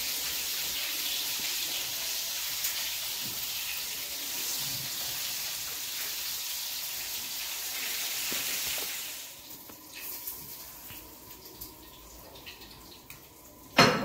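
Fish frying in oil in a pan, a steady sizzling hiss that falls away about nine seconds in. A single sharp clatter near the end.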